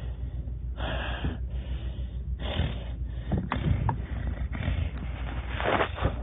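A person breathing heavily close to the microphone, with three loud breathy gasps over a steady low hum.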